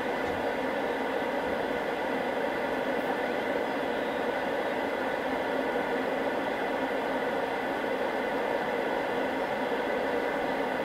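Tecsun S-2000 shortwave receiver hissing with steady band noise on an idle 80-metre amateur frequency between transmissions. It is in lower-sideband mode with the narrow filter, which shapes the hiss, and a few faint steady tones sit in the noise.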